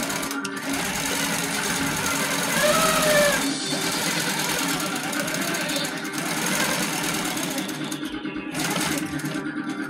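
Baby Lock Coronet quilting machine running steadily at stitching speed as the quilt is guided under the needle, with background music playing along.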